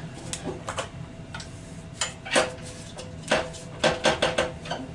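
Faceplate being threaded onto a wood lathe's headstock spindle and snugged up: irregular metal clicks and knocks, some with a short ring. A quick run of them comes in the second half.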